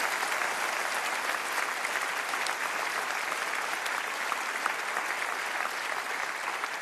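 A large audience applauding, a dense, steady patter of many hands clapping.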